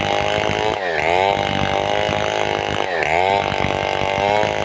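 Large two-stroke Stihl 070-pattern chainsaw (New West 707 clone) running at high revs while ripping a log into planks. Its pitch dips and climbs back twice, about two seconds apart, as the chain loads up in the cut and recovers.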